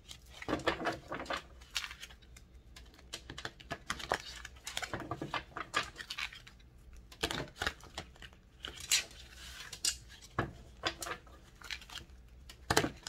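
A deck of cards being shuffled and handled by hand: irregular papery flicks and riffles coming in short clusters.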